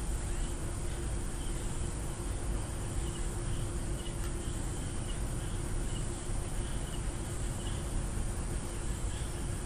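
Steady microphone background noise: an even hiss with a constant low hum, and faint short high chirps coming now and then.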